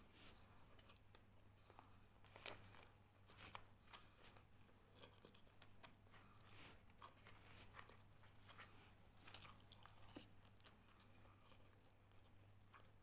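Faint chewing and crunching of a mouthful of roasted pork and rice, with scattered soft clicks, over a steady low hum.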